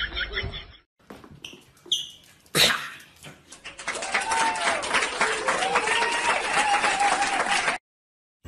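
A dog giving a few drawn-out rising-and-falling cries over a steady hiss, after a couple of short high squeaks and a sharp click.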